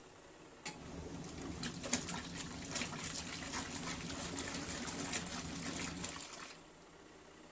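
Water running and splashing in the tub of a portable twin-tub washing machine, with small clicks and knocks, starting about half a second in and stopping about a second before the end.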